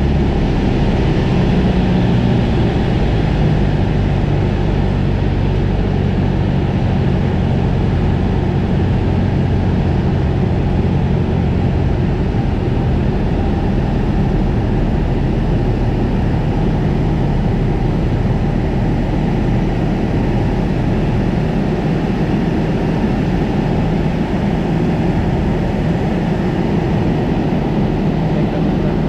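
Single-engine propeller airplane in flight, heard from inside the cockpit: a steady, loud drone of the piston engine and propeller.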